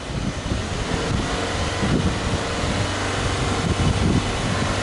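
Subaru Impreza G4 2.0i-S's 2.0-litre flat-four boxer engine running steadily, heard at the tailpipe, with some wind on the microphone.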